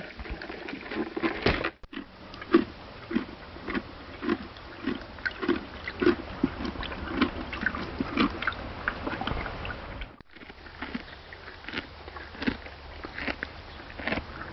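An animal chewing feed with steady, crunchy bites about two a second, in three short takes joined with brief gaps.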